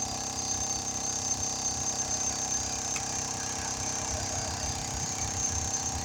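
A machine running steadily, with a constant high whine over a low hum.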